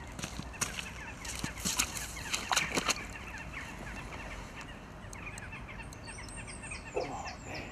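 Water splashing and sharp knocks at the river's edge as a hooked barbel is played into a landing net, most of it bunched together about two seconds in. A few short high bird chirps follow near the end.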